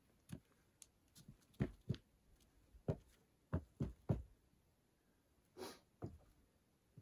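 Footsteps of work boots climbing stone steps and stepping onto a wooden porch deck: a series of dull thuds, most of them between about one and a half and four seconds in, with a brief scuff just before the last step.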